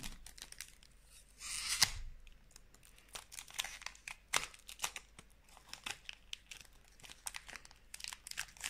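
Foil booster-pack wrapper being torn open: one longer rip about one and a half seconds in, then scattered crinkles and crackles as the foil is handled.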